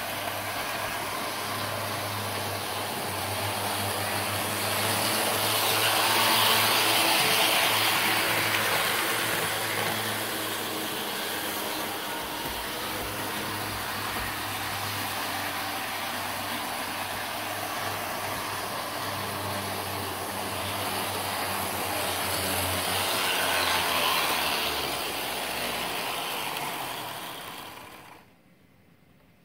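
Model train locomotives running on the track, a steady mechanical running noise that grows louder twice, then cuts off abruptly near the end as the trains stop.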